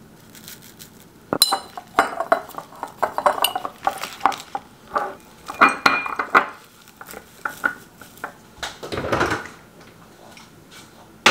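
Glass jars clinking and knocking on a countertop, mixed with rustling packaging, as ground spice and fresh herbs are put into jars: a run of light clatter with many short knocks. A soft whoosh about nine seconds in, and a sharp knock at the very end.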